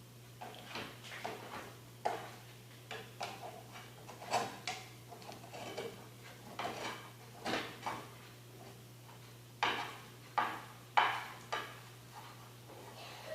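A kitchen utensil clinking and scraping against a pan as eggs are cooked: irregular light knocks, with three sharper clacks in quick succession about ten seconds in, over a faint steady hum.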